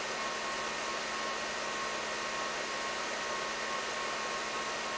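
Steady whir of 3D printer cooling fans with a faint hum, as the extruders preheat.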